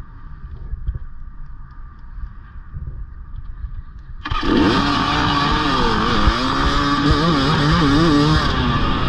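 Off-road motorcycle engine: a low rumble, then about four seconds in the engine comes in suddenly and loud, revving up and down with its pitch rising and falling.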